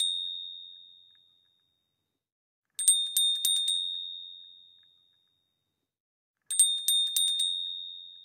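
Bell sound effect of a subscribe animation over silence: a small high-pitched bell rung rapidly about six times, then ringing out and fading. A ring is dying away at the start, and the whole pattern comes twice more, about every three and a half seconds.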